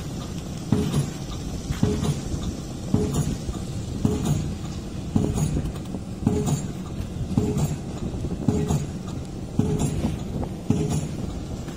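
Heavy machinery clanking in a steady rhythm, a double knock about once a second over a low rumble.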